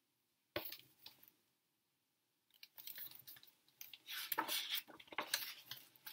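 Faint paper rustling and crinkling in uneven bursts as the pages of a hardcover picture book are handled and turned, after a single soft knock about half a second in.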